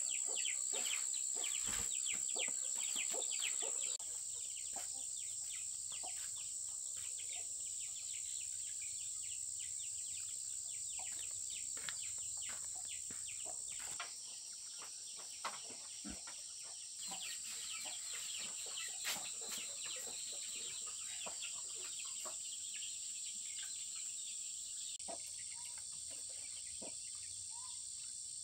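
Outdoor rural ambience: insects keep up a steady high-pitched shrill, with many short bird chirps over it. The background changes abruptly a few times.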